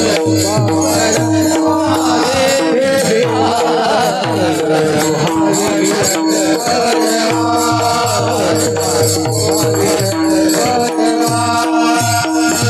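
Marathi devotional abhang music between sung lines: a steady drum rhythm with jingling percussion and held melody tones.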